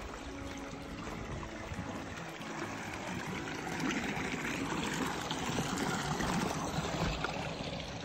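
Water running and trickling in a small stone-lined irrigation channel. It grows louder from about halfway through as the flow is passed close by.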